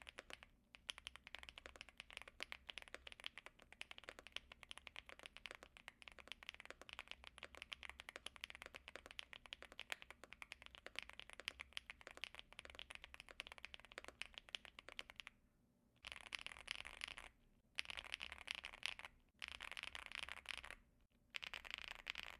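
Typing on an Epomaker Feker Galaxy 80 mechanical keyboard fitted with Gateron EF Grayish tactile switches and GMK keycaps. It is a fast, continuous clatter of keystrokes that breaks into four shorter runs near the end. The sound is creamy.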